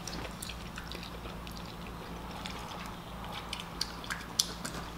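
Close eating sounds of chewy jjolmyeon noodles being slurped and chewed: soft wet mouth clicks throughout, with a few sharper clicks near the end.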